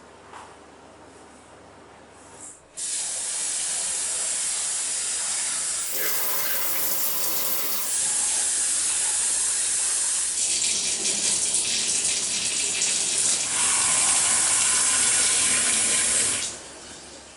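Water running from a tap into a sink, a steady gush that starts suddenly about three seconds in and stops near the end.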